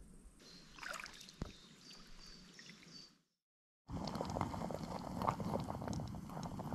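Quiet paddling of a kayak on a calm river with a bird's repeated short high chirps. Then, after a cut, a pot of baked beans in tomato sauce bubbling on a camping gas stove, a dense crackling bubble and hiss that is the louder part.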